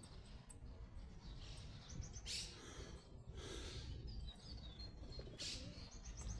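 Faint small birds chirping in short quick runs of high notes, over a steady low background rumble, with a few brief rustling bursts.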